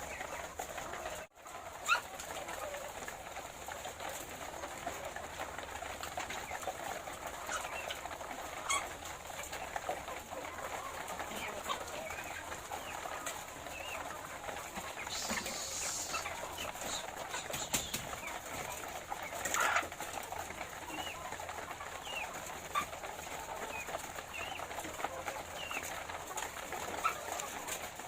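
A flock of laying hens clucking and murmuring on and on, many birds at once, with scattered sharper calls over the top and a few knocks.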